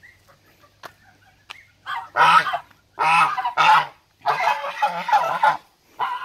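Young domestic geese honking loudly in repeated harsh bouts, starting about two seconds in.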